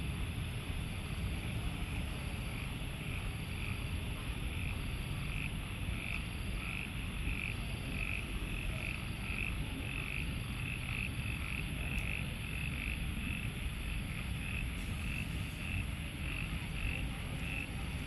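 A frog calling after rain: a steady series of short, high notes, about two a second, over a constant low rumble.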